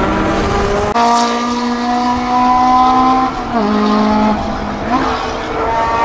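Chevron B26 sports prototype's naturally aspirated 2-litre inline-four running hard on track, its pitch climbing steadily under acceleration. The note drops about three and a half seconds in and jumps back up near five seconds with a gear change, and there is an abrupt cut in the sound about a second in.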